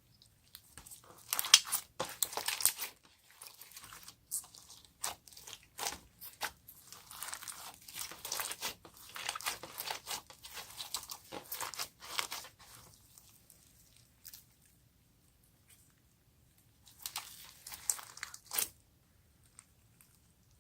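Slime being worked by hand, squeezed and stretched with dense crackling and popping, in a long run of bursts, then a pause and one more short burst near the end.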